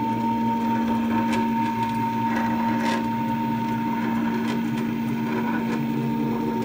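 Stepper motor driving a ball screw, running the carriage plate along steel linear guide rails at a steady speed: a constant whine with the running hum of the screw and carriages. The new recirculating-ball linear guide blocks add a little noise that is expected to go as they bed in.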